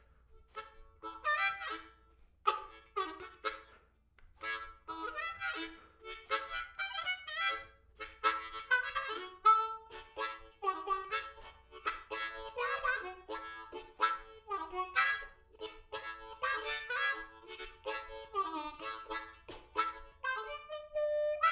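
Background music: a harmonica playing a melody of short notes, some of them bent.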